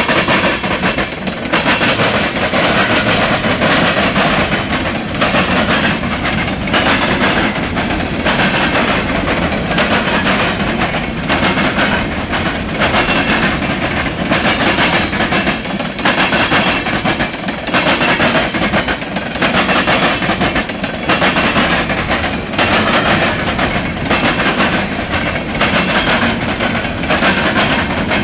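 Norfolk Southern freight train's cars rolling steadily past, with wheels clicking rhythmically over the rail joints.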